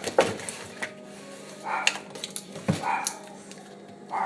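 Pet dog barking indoors, two barks about a second apart, after a sharp knock just after the start.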